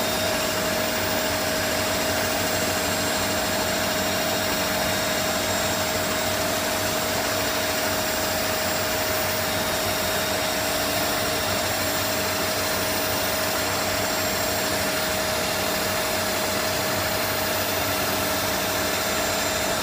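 Aclass X-axis power table feed motor on an ARGO 5VH milling machine running steadily, driving the table toward its limit-switch stop: an even motor whine with one clear steady tone.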